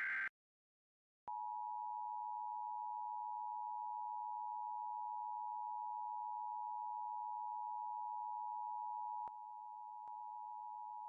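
Emergency Alert System attention signal: a steady, unbroken alert tone that starts a little over a second in and drops slightly in level about nine seconds in. It is preceded by the last fraction of a second of a buzzy digital data burst.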